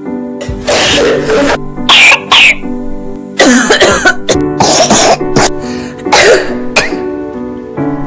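A child coughing repeatedly in several bouts, the bronchitis cough example, over steady background music.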